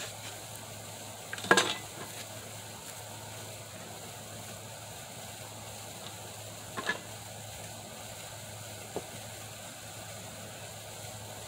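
A few sharp wooden knocks and clicks as a board is freed from a bench vise and handled, the loudest about a second and a half in. A steady background hiss runs under them.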